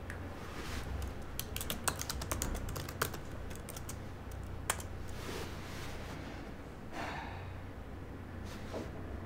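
Typing on a laptop keyboard: a quick run of key clicks in the first few seconds, then a single click and a few softer taps, over a low steady hum.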